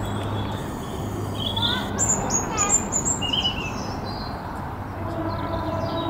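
Small songbirds chirping and twittering, with a cluster of high chirps about two seconds in, over a steady low hum and background noise.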